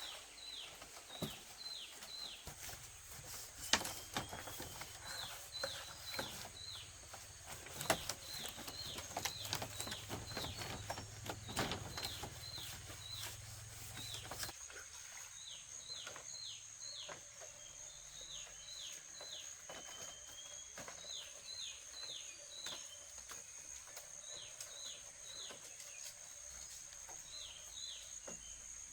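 Birds chirping: short, quick falling calls in runs of three to five, repeated throughout over a steady high insect drone. Several sharp knocks sound in the first half.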